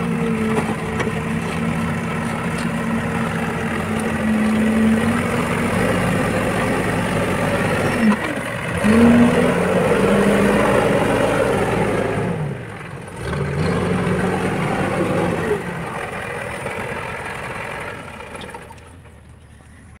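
Diesel engines of a tractor and a backhoe loader running under load, the engine speed dropping and picking up again a few times. The sound fades away over the last couple of seconds.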